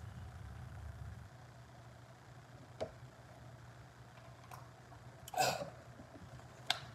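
A person drinking water from a glass, quietly: faint swallowing with a couple of small clicks, and a short breathy sound about five and a half seconds in.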